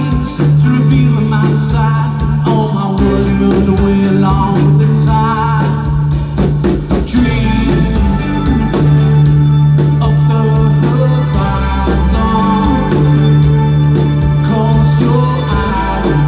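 Live rock band playing through a PA: electric guitars and bass over a drum kit, with a sustained bass line.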